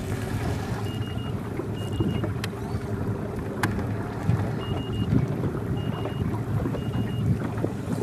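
Wind and lapping water with a steady low rumble. Short high beeps sound several times, and two sharp clicks come about a second apart in the middle.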